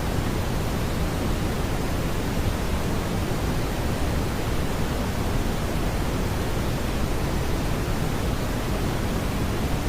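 Steady synthetic brown noise: an even, unbroken rumbling hiss weighted toward the low frequencies, with no tones or events in it.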